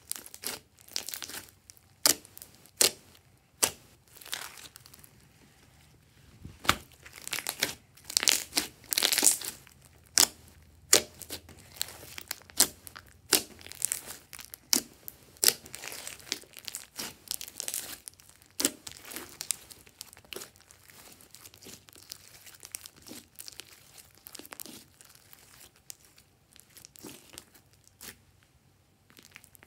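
Hands squeezing and kneading a large mass of glossy slime, the trapped air popping and crackling in sharp, irregular snaps. The pops come thick and fast for the first twenty seconds or so, then thin out to a few near the end.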